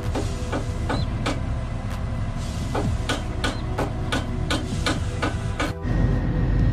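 Hammer striking steel in a quick irregular series of sharp metal-on-metal blows, two or three a second, over the steady drone of a running diesel engine. Near the end the hammering stops and a louder low diesel engine rumble takes over.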